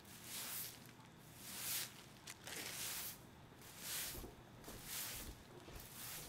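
A hiss that swells and fades about once a second, six times in all, with a few faint low thuds in the second half.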